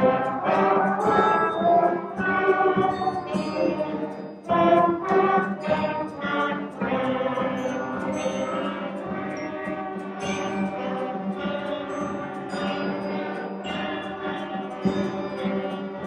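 A middle school concert band of clarinets, saxophones and brass playing a piece together, holding sustained chords that shift every second or so.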